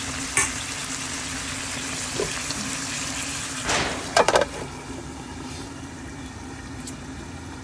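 Chicken, potatoes and carrots simmering in sauce in a frying pan, over a steady low hum. About four seconds in, an aluminium lid is set on the pan with a few quick metallic clanks, and the simmering sounds softer after it.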